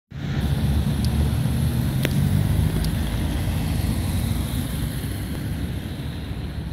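Cars driving past on a city street. The engine and tyre rumble is loudest in the first few seconds and slowly fades as they move away.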